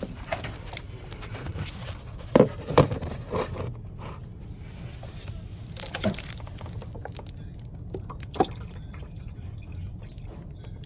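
Water dripping and splashing, with a few sharp knocks and a splashy burst about six seconds in, over a steady low hum.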